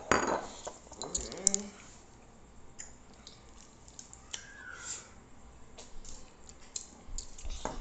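A short vocal sound at the start, then small wet mouth noises: lip smacks and licking as hot sauce is licked off the fingers.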